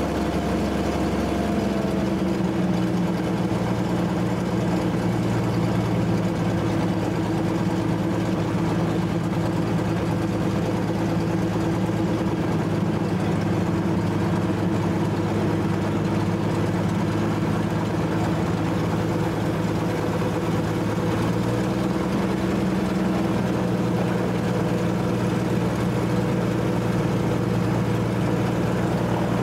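Pitts biplane's piston engine and propeller running steadily at low ground power, heard close up from the cockpit. The engine note shifts slightly about two seconds in and again a little past the middle.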